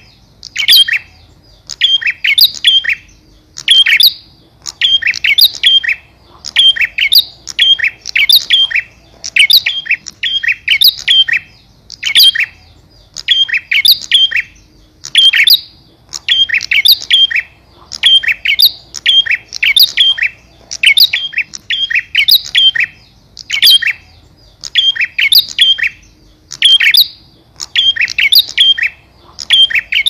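Male bar-winged prinia (prenjak) calling to a female: bursts of several sharp, high chirps, repeated over and over about once a second with short pauses between.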